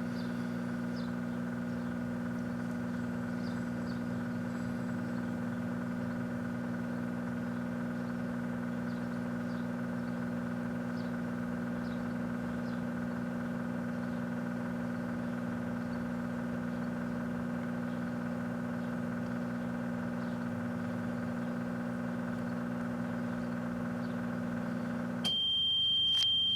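Microwave oven running with a steady electrical hum. The credit cards inside make no sparking or crackle. Near the end the hum cuts off and one long high beep sounds as the cycle finishes.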